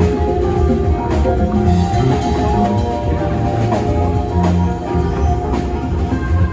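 Live band playing loudly, with drums and a low, sustained bass line under guitar.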